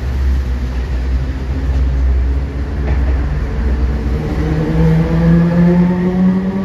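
Street traffic: a low engine rumble, then from about four seconds in a motor vehicle's engine rising in pitch as it accelerates.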